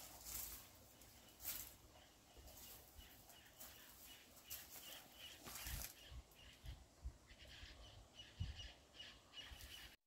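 Very faint sounds on a forest trail: scattered footsteps and, from about halfway through, a small bird chirping over and over.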